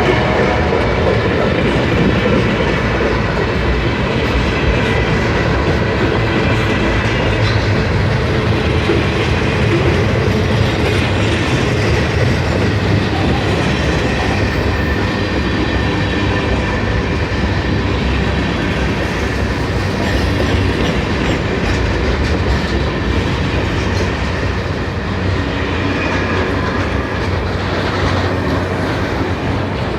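Norfolk Southern mixed manifest freight train rolling past, its cars' wheels running over the rails at a steady level.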